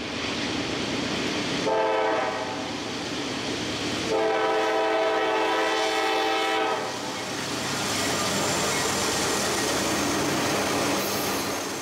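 Train horn sounding a short blast about two seconds in, then a longer blast of two to three seconds, each a chord of several steady tones, over the steady noise of a moving train.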